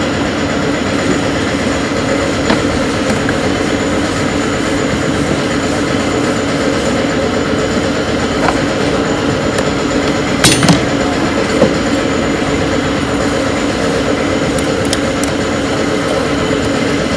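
A steady mechanical drone, with a few sharp metallic clinks of hand tools as engine-bay fittings are undone. The loudest is a short cluster of clinks about ten seconds in.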